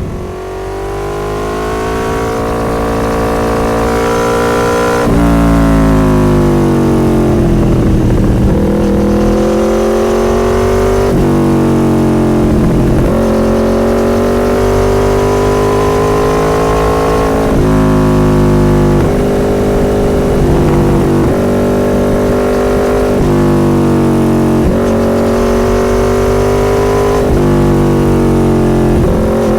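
Motorcycle engine running on the move, its pitch climbing steadily and then dropping suddenly several times as it shifts through the gears.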